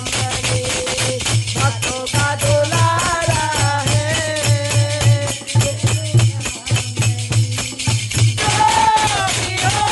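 Devotional bhajan: a woman's voice sings the melody over a steady dholak beat and constant jingling hand percussion. The singing grows stronger and higher about eight seconds in.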